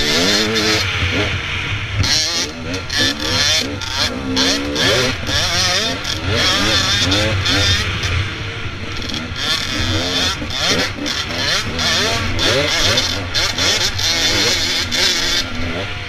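Dirt bike engine, heard close from the rider's helmet camera, running hard on a dirt trail, its pitch rising and falling every second or so with the throttle and gear changes.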